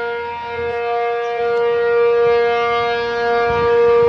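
A loud, steady, horn-like drone holding one pitch with many overtones, swelling a little in loudness twice. It is the unexplained 'sky trumpet' sound, heard as trumpets coming from the sky with no visible source.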